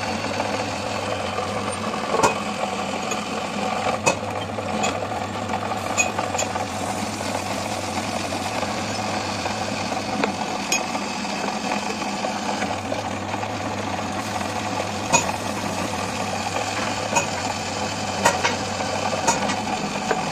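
A machine's motor running steadily with a hum, with sharp knocks now and then, about eight in all, a second or several seconds apart.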